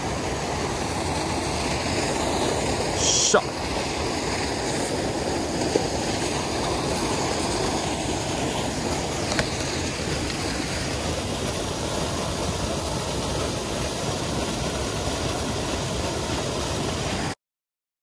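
Mountain stream water rushing steadily. A brief sharp knock about three seconds in, and the sound cuts off abruptly near the end.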